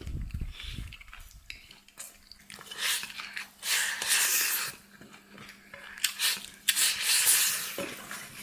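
Close-miked eating sounds: chewing and crunching of food in several bursts, with a low rumble in the first second.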